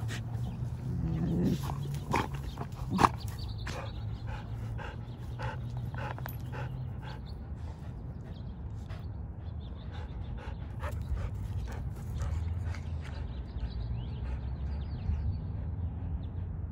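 Two dogs play-fighting: low growling in the first few seconds and one sharp, loud cry about three seconds in. After that come quieter scuffling in dry wood mulch and panting as the dogs settle.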